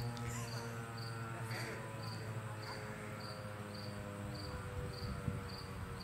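A high chirp repeating evenly about twice a second, typical of an insect, over a steady low hum.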